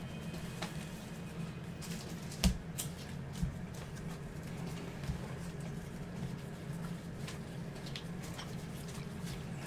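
Basketball trading cards being flipped and slid through gloved hands, light rustling and ticking, with a sharp knock about two and a half seconds in and a smaller one about a second later, over a steady low hum.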